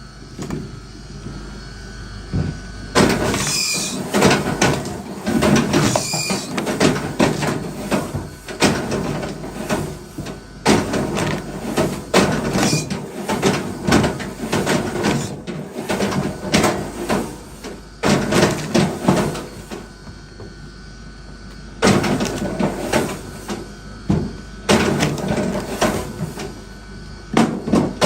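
Wood being worked by hand: irregular knocks, clatter and scraping of wooden pieces, coming in busy clusters with short pauses between them.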